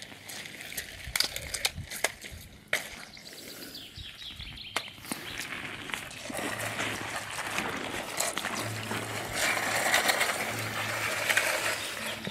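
Water of a small forest stream running, growing louder about halfway through, with a few sharp knocks in the first few seconds.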